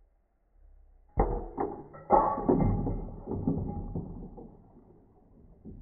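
Slowed-down sound of a mallet striking the top of a water-filled glass bottle. A sharp impact about a second in is followed by two more knocks and a long, deep rumble that slowly fades, as the pressure blows the bottle's bottom out into the water.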